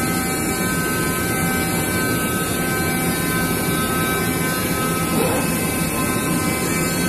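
SINAJET flatbed digital cutter running as it cuts printed KT foam board: a steady mechanical whir with a few faint, steady whining tones.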